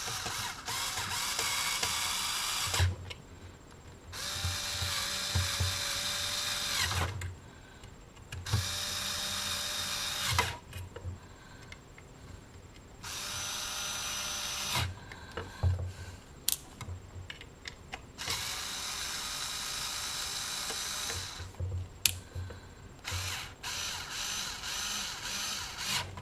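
A cordless power screwdriver or drill runs in about six bursts of two to three seconds each, driving screws to put a CB radio back together. Small knocks and clicks of handling come between the bursts.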